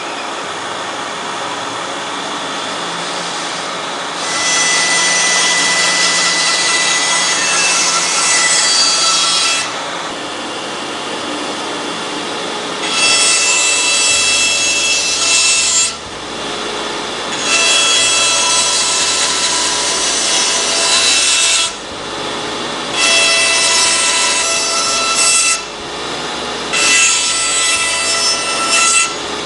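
Band saw running with its blade cutting into a wooden board five times in a row: straight relief cuts made into a marked tight curve so that the blade won't bind or break when the curve is cut. Each cut is a louder sawing stretch of a few seconds, and the steady running sound of the saw lies between them as the board is backed out.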